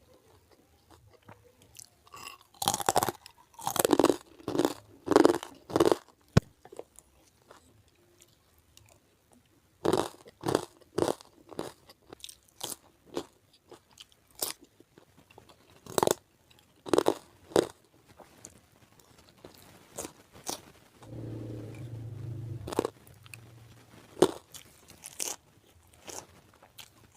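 Close-miked crunchy biting and chewing of crispy basreng (fried fish-ball chips) with fried rice, coming in irregular clusters of loud crunches with quiet pauses between. A low steady sound lasts about two seconds, about three-quarters of the way through.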